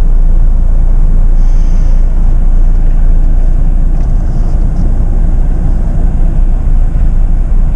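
Jeep Meridian's 2.0-litre diesel engine running at about idle, around 1000 rpm, as the SUV crawls along under idle torque: a steady, loud low rumble of engine and tyre noise.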